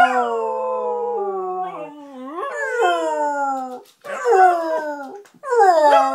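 Pet dog howling: a run of long howls, each sliding down in pitch, the middle one swooping up and back down briefly before falling away.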